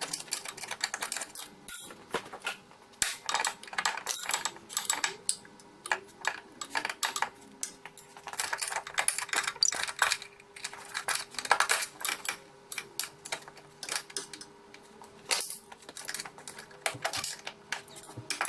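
Hand ratchet clicking in quick runs with metallic clinks, as the bolts of a car's gearbox mount are worked loose.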